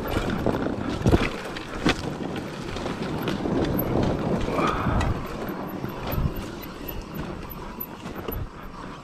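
Trail-riding noise from a bike on rough dirt single track: tyres rolling over dirt and ruts, brush brushing past and the bike rattling. Two sharp knocks come about one and two seconds in.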